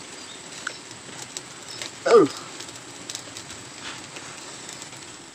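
Open wood fire crackling under fish being roasted, with a steady hiss and scattered small pops. About two seconds in comes one short, loud call that slides steeply down in pitch.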